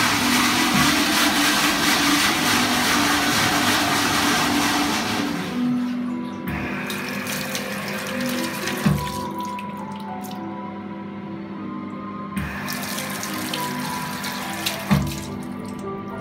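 Water from an automatic sensor tap splashing into a stainless steel sink while the toilet's automatic flush rushes loudly for the first five seconds or so. The water flow drops away and comes back about twelve seconds in, with two sharp knocks near nine and fifteen seconds, and background music playing throughout.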